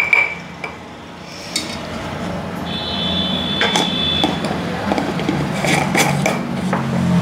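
A metal spoon clinks against a glass pickle jar, then a few scattered knocks of the jar, its plastic lid and an enamel pot on a stone counter. Under them runs a low hum that grows steadily louder through the second half.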